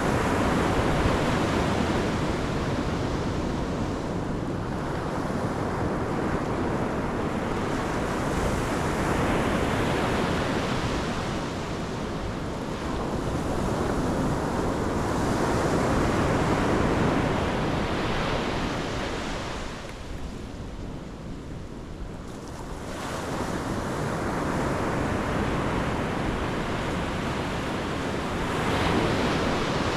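Pacific Ocean surf breaking and washing up the shore in a steady, unbroken rush that swells with each incoming wave every few seconds. There is a quieter lull about two-thirds of the way through before the next wave builds.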